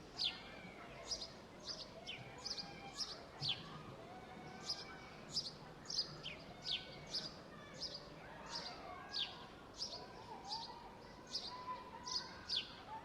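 Outdoor park ambience: a bird repeats short, high chirps that sweep quickly downward, roughly two a second, over a faint background of softer, lower sounds.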